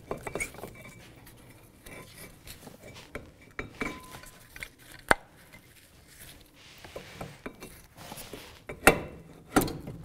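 Metal clinks and knocks as a Subaru Outback's front brake caliper bracket and pads are worked into place over the rotor. Scattered light taps, with a sharp clack about five seconds in and two louder clacks near the end.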